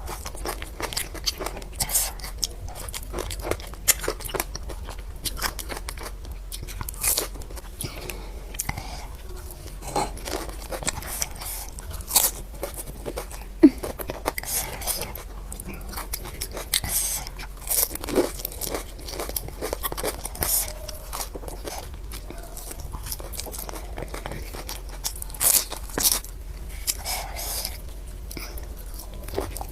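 Crisp, hollow pani puri shells being bitten and chewed, with irregular crunches scattered throughout.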